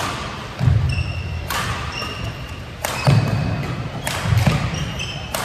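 Badminton doubles rally: a series of sharp racket-on-shuttlecock hits, mixed with shoe squeaks and dull footfalls on the court floor.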